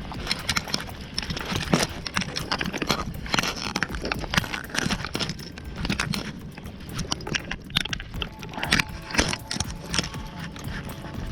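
Irregular clatter of many small knocks, clicks and rattles.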